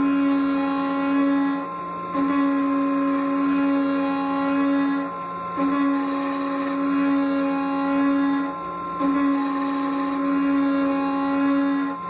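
Mazak Integrex 200 multitasking CNC machine cutting inside the bore of a metal part: a steady mechanical whine that breaks off briefly about every three and a half seconds, three times, between repeated passes.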